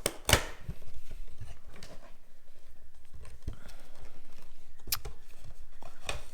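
Cardboard product box being opened by hand: a few sharp cardboard snaps and knocks, two close together at the start and one about five seconds in, over a low rustle of handling the box and packaging.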